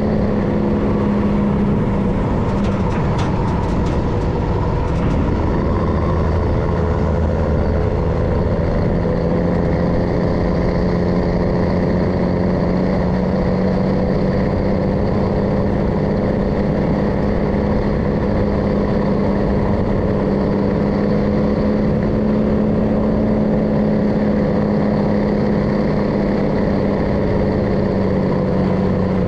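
MAN LE280B 4x4 truck's diesel engine running steadily on the road. About three to six seconds in its note dips and climbs back, with a few light clicks.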